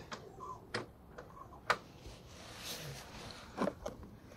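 A few light, sharp taps at irregular intervals on the bottom end of a motorcycle rear brake caliper piston, the piston being worked loose in a Honda VFR800 caliper during a brake service.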